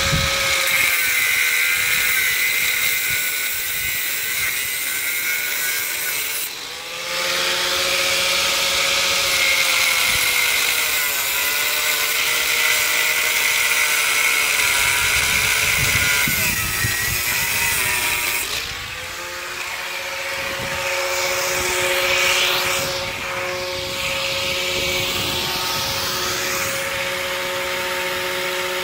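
Angle grinder running with a steady high whine while its disc grinds at a steel post set in concrete. The motor's pitch sags several times as the disc is pressed into the cut and recovers when it is eased off, and the grinding hiss drops out briefly about six and a half seconds in.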